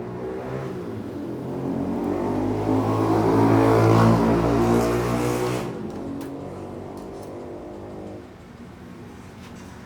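A motor vehicle's engine passing by, swelling to a peak about four seconds in and fading away by about eight seconds. A few light clicks come just after the peak.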